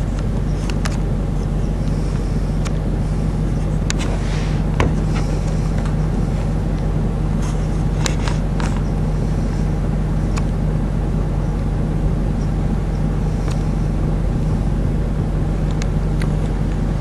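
A vehicle engine idling steadily with a low, even hum, a few faint clicks over it.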